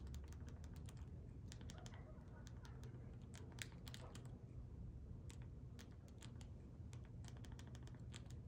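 A quick, uneven run of small plastic clicks as a TV remote's buttons are pressed again and again to step across an on-screen keyboard and enter letters, faint over a low steady hum.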